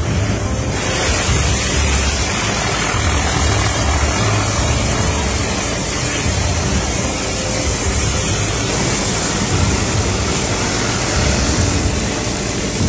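Helicopter noise heard from aboard: the steady run of engine and rotor, with wind rushing past the microphone.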